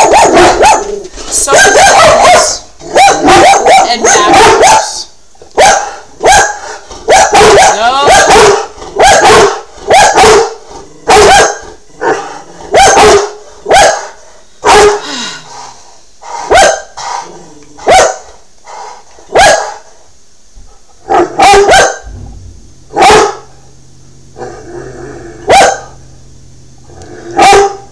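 Dog barking loudly and repeatedly, in runs of quick barks with short pauses between.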